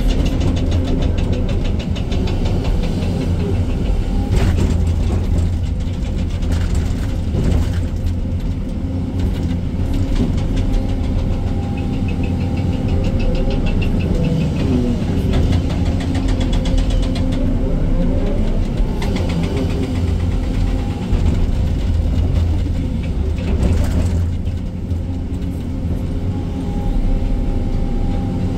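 Excavator diesel engine running steadily under load from inside the operator's cab, with a hydraulic whine that comes and goes as the arm and bucket work. A few clanks of bucket or rock are heard several times.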